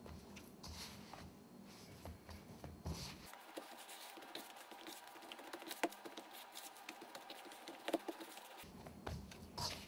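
Hands pressing and folding sticky dark rye dough in a metal mixing bowl: soft, irregular pats and squishes, with a few sharper clicks.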